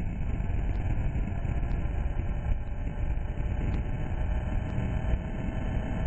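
Steady rush of wind and propeller noise picked up on board a Penguin FPV model airplane as it takes off and climbs.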